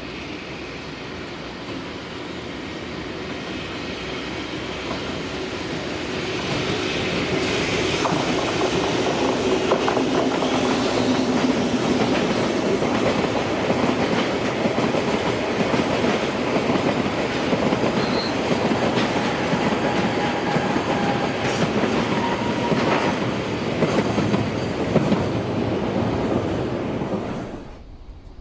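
Electric-hauled freight train passing, its wagons running on the rails. The sound grows louder over the first several seconds, holds steady, then cuts off suddenly near the end.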